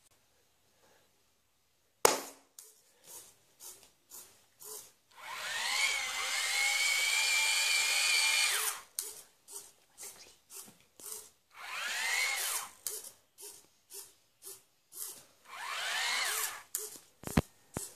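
A single sharp hand clap sets off the robot. Then its small electric motors whine in bursts: one long run that rises in pitch and holds steady, and two shorter whines that rise and fall, with regular clicking between them.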